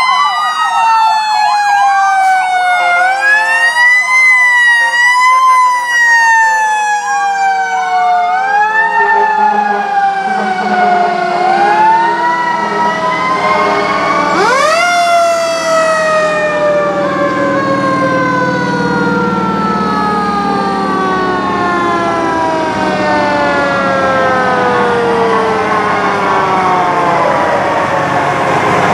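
Several fire truck sirens sounding over one another as the trucks pass. One winds up sharply about halfway through, and others fall slowly over many seconds, with a low diesel engine rumble under them in the second half.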